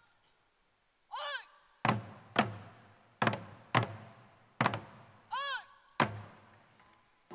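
Korean buk barrel drums struck together in single heavy strokes, about seven of them in a slow, uneven pattern, after about a second of near quiet. Two short calls that rise and fall in pitch come about a second in and again about five and a half seconds in.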